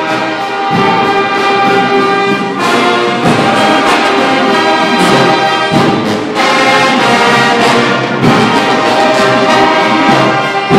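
A marching band's brass and saxophone section playing loud, full chords, with trumpets and trombones on top and sousaphones underneath; the chords change every second or two.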